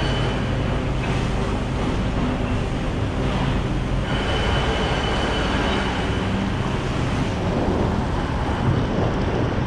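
Street traffic noise: a motor vehicle's engine running close by over a steady road rumble.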